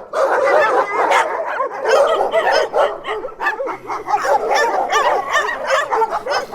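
Several dogs barking and yipping at once, with many short calls overlapping without a break and high whimpering cries mixed in.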